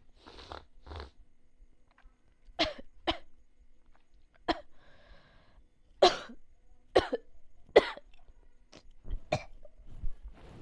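A person coughing: about nine short, sharp coughs, some single and some in pairs, after two breathy intakes at the start.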